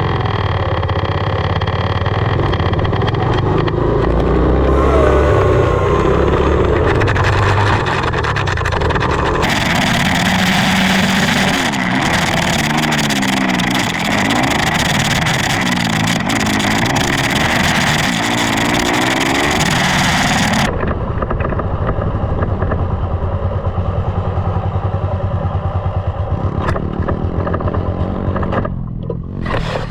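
Dirt bike engine running while riding, its revs rising and falling over and over through the middle of the stretch.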